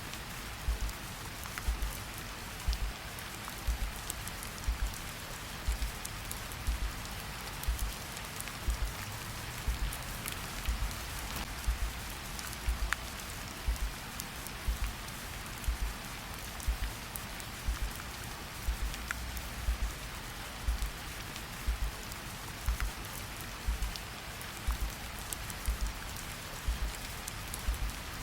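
Steady rain falling, with scattered drop ticks, over a slow, deep heartbeat that thumps in double beats about once a second.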